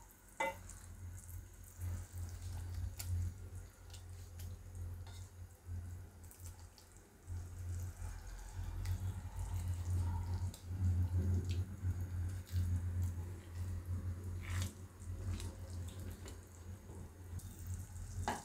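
Thick cocoa syrup simmering in a pan, its bubbles popping in scattered small plops over a steady low hum.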